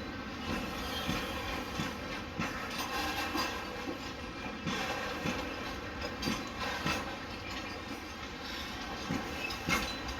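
Container wagons of a freight train rolling slowly, wheels clicking and clanking irregularly over the rail joints, under a steady screech of wheels on rail.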